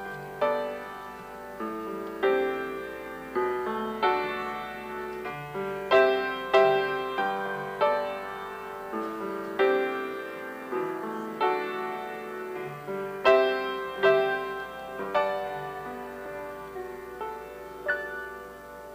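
Solo piano playing a slow piece, single notes and chords struck and left to ring out; the last chord is struck near the end and fades away.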